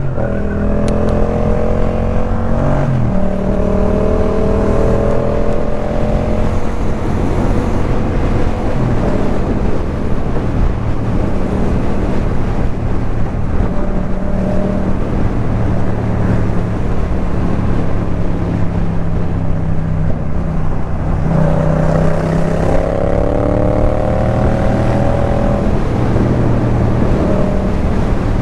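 Yamaha MT-07's parallel-twin engine through a Jeskap K4 full exhaust system, running under way. The revs rise and fall with the riding, with a longer climb in engine pitch about three-quarters of the way through.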